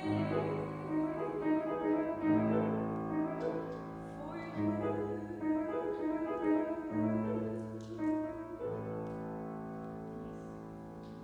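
Piano accompaniment alone playing the song's closing bars: sustained chords, with a new low chord struck about every two seconds and the last one fading away.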